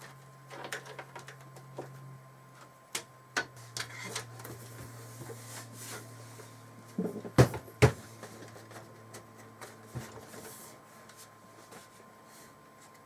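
Handling noise of cables and plastic parts being worked inside a computer case: scattered clicks and knocks, with two sharper knocks about halfway through, over a faint low hum that fades out later on.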